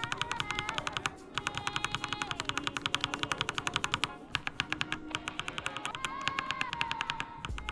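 Mechanical keyboard keys fitted with Akko Crystal Pro V3 linear switches tapped rapidly, about ten keystrokes a second, in three runs with short pauses between them. The switches have a slightly muffled clack.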